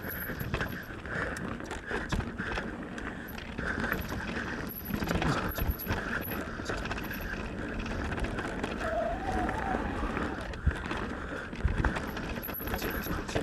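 Mountain bike rolling down a rough, loose trail: steady tyre noise on dirt and rock, with frequent knocks and rattles from the bike over bumps.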